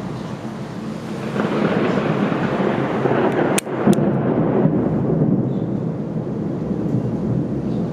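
Thunder rumbling and rolling, recorded through a Panasonic DMC-G7 camera's built-in microphone; the rumble swells about a second and a half in, and two sharp clicks cut through it near the middle.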